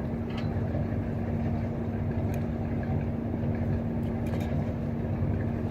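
Steady low rumble of an idling engine, with a constant hum and a few faint clicks.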